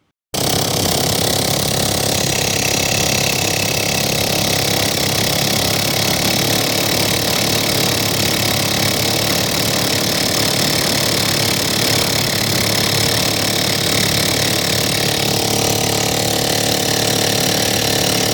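150cc GY6 single-cylinder four-stroke scooter engine running steadily with its muffler removed, the exhaust coming straight out of the open exhaust port. It starts abruptly about a third of a second in and holds an even, loud note.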